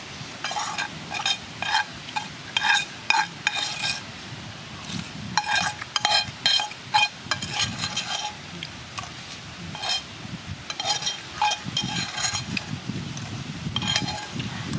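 Irregular, quick clinks and scrapes of a utensil against a pan or dish of snails, each clink ringing briefly, coming in clusters with short pauses between.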